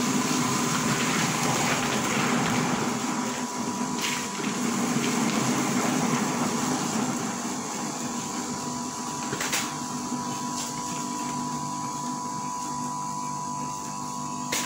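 Electric soybean grinder running steadily, milling soaked soybeans with water into soy milk; water splashes into the hopper during the first half, with a few short knocks along the way.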